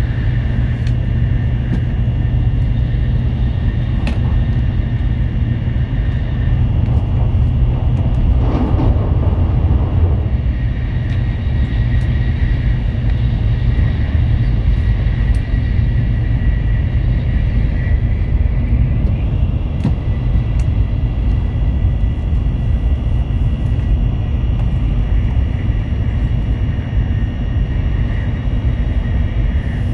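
Tokaido Shinkansen Nozomi bullet train running at speed, heard from inside the passenger cabin: a steady low rumble from the running gear with a faint high whine above it. About eight seconds in, a brief rush of louder noise passes.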